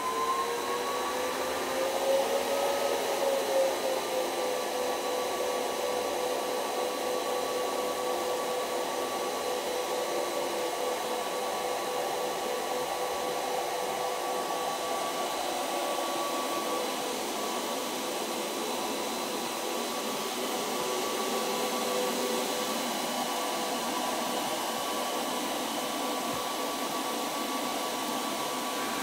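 Cooling fans of a KOI Miner C16 Bitcoin ASIC miner running the start-up fan speed test at maximum duty cycle. The whine rises in pitch for the first two to three seconds, then holds as a steady whine over an even rush of air.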